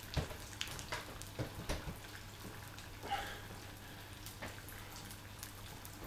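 Battered chicken pieces frying in hot oil in a frying pan, the oil crackling and popping irregularly.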